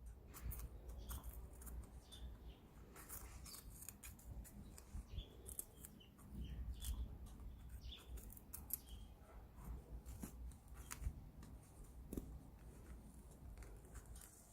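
Faint, irregular, crisp clicks and scrapes, several a second, with a few small high chirps among them.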